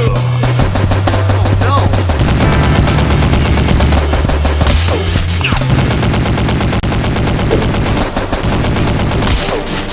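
Rapid machine-gun-style gunfire, shot after shot with no break, over a background music track with a steady bass line.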